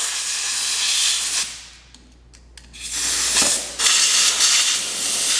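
Compressed-air blow gun hissing in blasts, blowing debris out of the collar's pin holes and keyway. The first blast stops about a second and a half in, and another starts about three seconds in.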